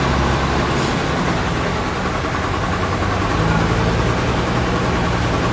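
Heavy machinery running steadily: an engine's low hum under a dense mechanical din, its pitch shifting slightly about three seconds in.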